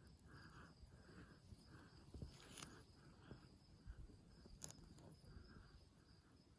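Near silence with faint insect chirping in a slow, even rhythm of about one or two pulses a second, and a few light clicks.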